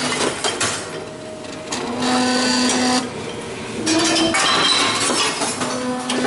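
Tomra reverse vending machine taking in glass bottles. Its motor hums in short steady runs as a bottle is turned and checked, with loud mechanical clatter and rattling between.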